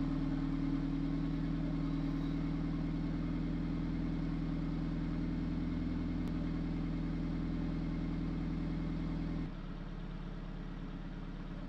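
Toyota 86's flat-four boxer engine idling steadily through a Power Flow aftermarket exhaust with quad tips. About nine and a half seconds in, it drops a step quieter.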